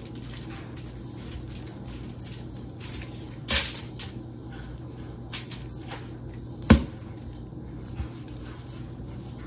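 Raw chicken breast being skinned with a kitchen knife on a foil-lined counter: faint crinkling of the foil and squishy handling, with a few sharp taps and knocks, the loudest about two-thirds of the way through, over a steady low hum.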